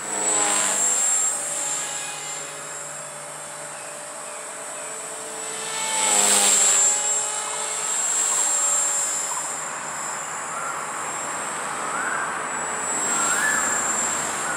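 Walkera V450D03 electric RC helicopter flying: the brushless motor and rotor make a steady high whine. It swells loudest twice as the helicopter passes close, about half a second in and again around six seconds in, with the pitch falling each time.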